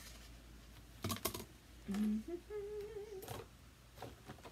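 A woman humming briefly to herself, a short low note and then a higher note held for about a second. A few light clicks and rustles of craft supplies being handled come just before and just after the hum.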